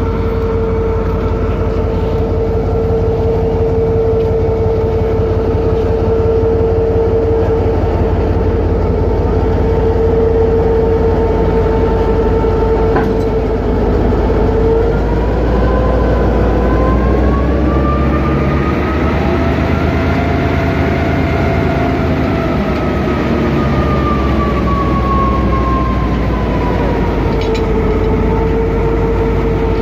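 Pakistan Railways GMCU-15 diesel locomotive running close by: a steady low engine rumble under a steady whine. About halfway through the pitch rises and then sinks back over several seconds as the engine speeds up and settles again. A single short knock sounds shortly before the pitch starts to rise.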